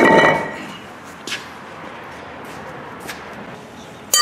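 Cast-iron BMW brake discs being set down and shifted on a concrete floor: a loud metallic clank that rings briefly at the start, a couple of light knocks, then another ringing clank just before the end.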